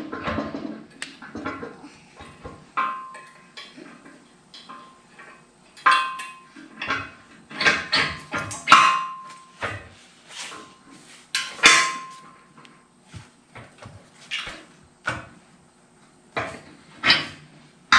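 Steel caster wheel bracket, pin and washer of a four-post car lift clinking and knocking against the steel post as the wheel assembly is pinned in place. Irregular metallic clinks, a few louder ones ringing briefly.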